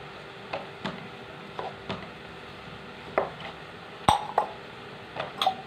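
Kitchen utensils knocking and clinking against dishes or a board: a string of short, irregular taps, the loudest about four seconds in.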